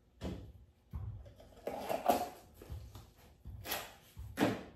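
Masking tape being peeled off a freshly painted metal fog light housing in several short tearing bursts, the loudest about two seconds in.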